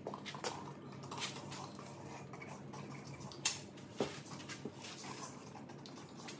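Handling noises from a plastic squeeze bottle of thin epoxy being squeezed and moved along cracks in a concrete floor: scattered small clicks and scuffs, the loudest about three and a half and four seconds in, over a faint steady low hum.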